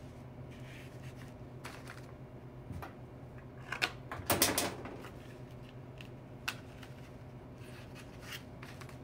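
Scissors snipping aspidistra leaves and the stiff leaves being handled: a few sharp clicks and snips spread out, with the loudest a quick cluster of clicks about four and a half seconds in. A low steady hum runs underneath.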